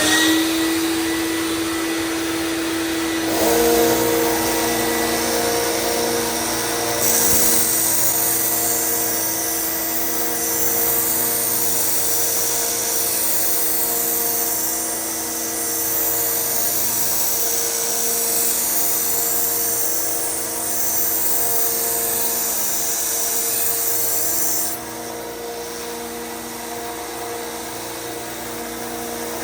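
Dust collector running steadily, joined about three seconds in by the motor of a 1x30 belt sander. From about seven seconds in, a knife blade is ground against the sander's 120-grit 3M Cubitron belt with a hissing grind, thinning the blade behind the cutting edge. The grinding stops about five seconds before the end, leaving the motors running.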